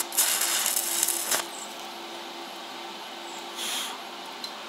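Stick welder arc crackling as a tack weld is laid on steel for a little over a second, then a second short burst of crackle about three and a half seconds in. A steady hum runs underneath.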